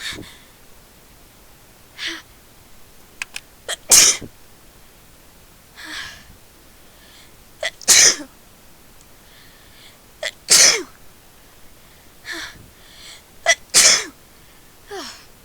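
A person sneezing four times in a row, the sneezes she has been trying hard to hold back. Each loud sneeze comes with short, quick catching breaths just before it.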